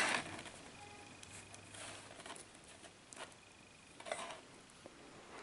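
Faint handling of a small plastic toy figure and its accessory: soft rustling with a few light taps, the clearest about three and four seconds in.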